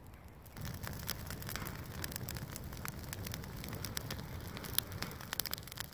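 A bundle of thin dry twigs burning fast and hot, crackling and popping densely over a steady rush of flame. It starts about half a second in.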